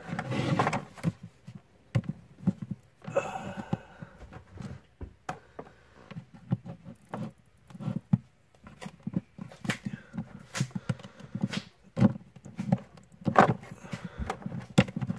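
Handling noise from a plastic action figure being posed: irregular small clicks and taps of plastic, with a couple of brief rustles.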